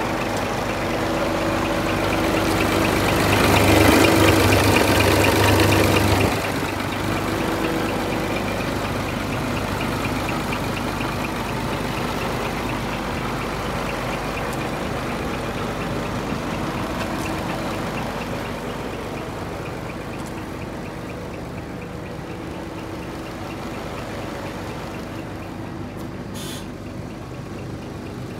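Scania P340 truck's diesel engine idling steadily, with a louder rush of a few seconds that cuts off sharply about six seconds in. The idle then grows gradually fainter, with a short click near the end.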